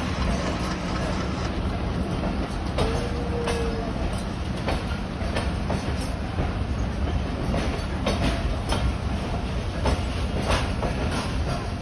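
Train on the move behind a WDM3D diesel locomotive: a steady low engine rumble with irregular clicks of wheels running over rail joints, and a brief high tone about three seconds in.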